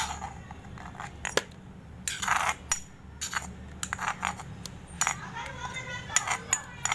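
A spoon clinking and scraping against a bowl as a thick spice paste is scooped out into a larger bowl: a string of sharp clinks with a couple of longer scrapes.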